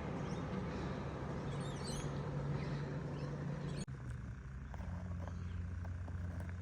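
Steady outdoor noise with a low hum under it and a few faint bird chirps about two seconds in; the sound drops out for an instant just under four seconds in.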